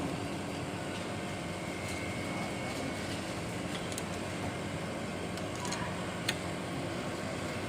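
A steady machine hum with a few light clicks, about four and six seconds in.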